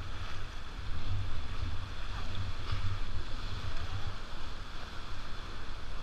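Rushing river water around a rafting boat, with wind buffeting the microphone in a heavy, fluttering low rumble.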